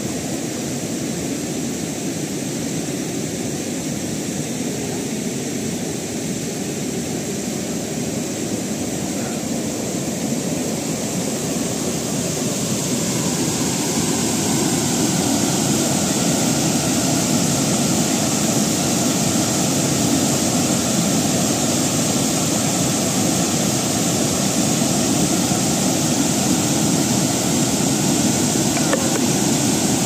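Floodwater from an overflowing lake rushing over its overflow weir and tumbling down the spillway: a steady rushing noise that grows louder about halfway through.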